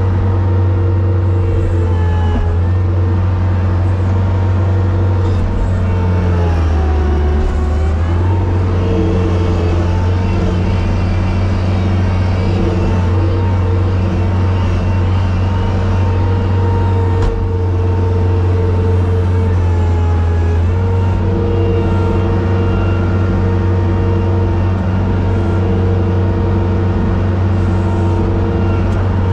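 Engine of a small snow-clearing machine with a bucket, running steadily, heard from inside its cab. Its pitch dips briefly twice, about a third of the way in and again past the middle.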